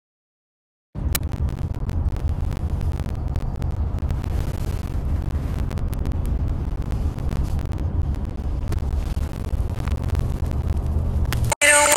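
Steady low rumble of a car's cabin while driving, starting suddenly about a second in, with a few faint clicks. Music cuts in right at the end.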